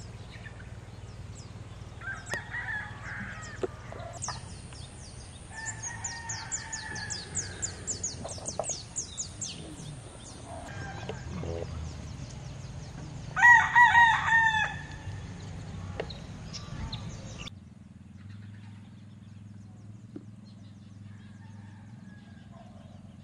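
A rooster crowing loudly about halfway through, with fainter crowing earlier, over small birds chirping rapidly in the morning.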